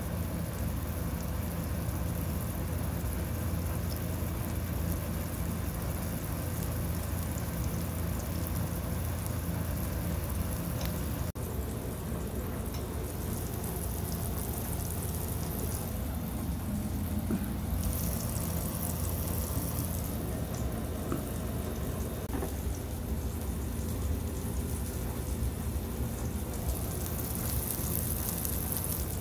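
Chicken patty sizzling as it fries in oil in a non-stick pan, over a steady low hum.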